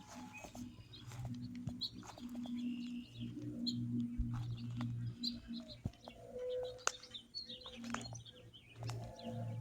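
Faint, low drone of a distant piston-engine propeller plane, swelling and fading, with birds chirping over it.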